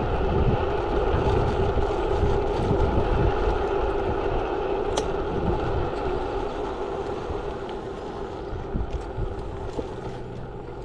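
Wind noise on the camera and tyre rumble over rough asphalt from a 350 W electric folding scooter riding at around 13 mph, with a steady motor hum underneath. The noise fades through the second half as the scooter slows down.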